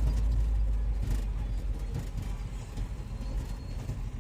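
Low rumble and road noise of a moving vehicle, loudest at first and easing off after about two seconds.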